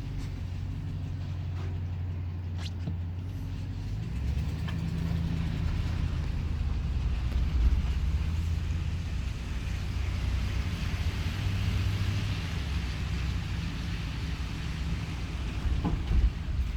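An engine running with a steady low rumble whose pitch shifts slightly every few seconds.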